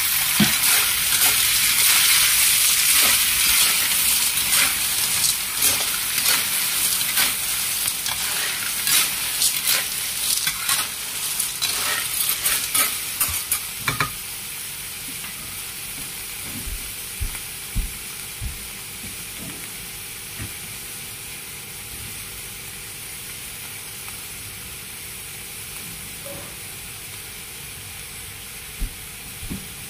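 Sea snails in their shells sizzling in hot oil in a wok, stirred with a metal spatula. For the first half the sizzle is loud, with shells and spatula clicking and scraping. From about halfway it settles to a quieter, steady sizzle with the odd click.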